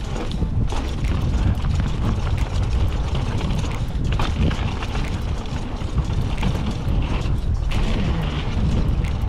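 Haro Shift R7 full-suspension mountain bike rolling fast down a dirt trail: its chain and parts rattle and click over the bumps. Heavy wind buffets the camera microphone as a steady low rumble.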